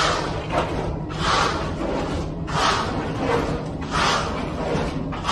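Screed board being sawed back and forth across wet, freshly poured concrete, a rough scraping swish with each stroke, about one every second and a half.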